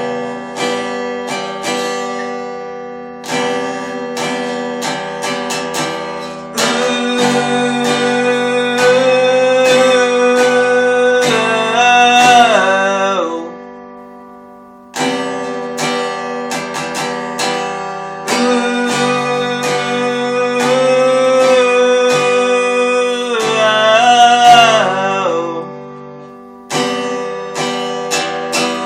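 Acoustic guitar playing an instrumental break between verses: picked notes under a held melody line. The phrase repeats twice, each time ending with the held note bending down.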